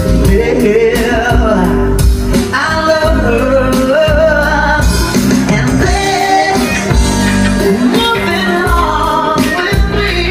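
Live band playing a song, with singing into microphones over electric guitar, bass guitar, keyboard and drums, loud and amplified.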